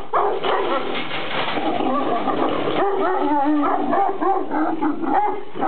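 Several Kangal shepherd dogs barking, yelping and whining over one another without a break.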